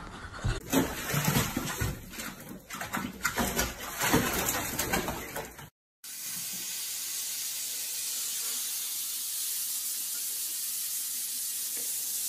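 Irregular knocks and rustling for the first five or so seconds. Then, after a brief break, a steady hiss of water running into a bathtub.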